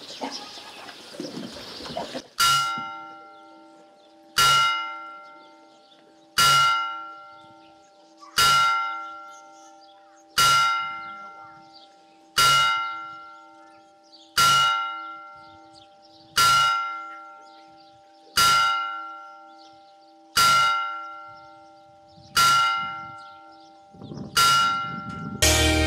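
A church bell striking twelve slow, evenly spaced strokes about two seconds apart, each ringing on and fading before the next, as a tower clock strikes twelve.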